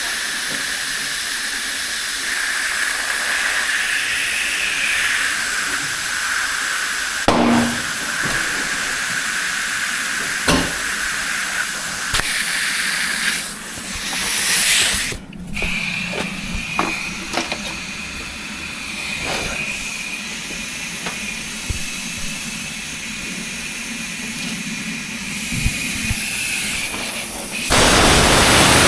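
Compressed air hissing from a tyre machine's inflator into a freshly mounted tyre, with a steady whistle, to seat its beads on the rim. Two sharp pops about 7 and 10 seconds in as the beads seat, and a much louder rush of air near the end.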